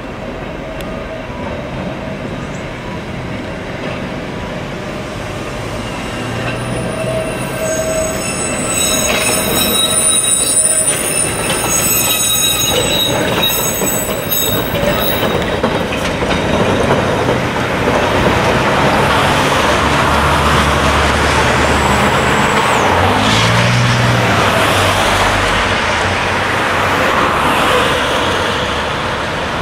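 Fukui Railway articulated tram running on street track: its wheels squeal in high, wavering tones on the curve from about six seconds in to about fifteen, then the tram's passing rumble and road traffic noise grow louder, easing slightly near the end.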